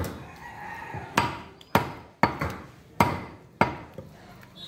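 Butcher's heavy cleaver chopping beef on a round wooden log block: six hard chops about half a second to a second apart, with a couple of lighter taps between.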